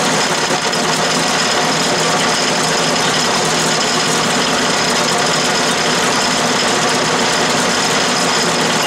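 12-inch Atlas/Craftsman lathe running steadily at a constant drone, its boring bar cutting an internal taper into aluminum stock held in a 3-jaw chuck.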